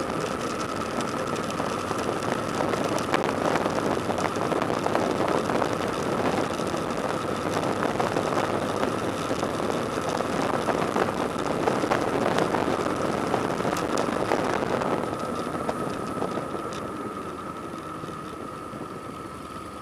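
Motorcycle riding along a mountain road, heard from the rider's on-bike camera: engine running under wind and road noise, with a steady high whine. It grows quieter over the last few seconds.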